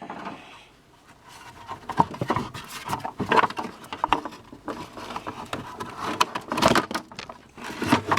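Hands working plastic retaining clips loose on a Chevy Blazer's engine computer (PCM): a busy run of irregular plastic clicks, knocks and scrapes.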